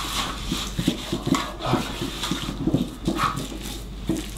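Hands rubbing and massaging crushed garlic into raw bone-in beef in a stainless steel tray: irregular wet rubbing, squelching and light slapping of hands on meat.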